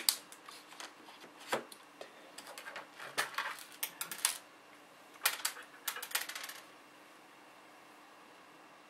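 Small sharp plastic clicks and clattery taps from handling the laptop's keyboard and plastic case parts during reassembly, in irregular clusters for about six and a half seconds.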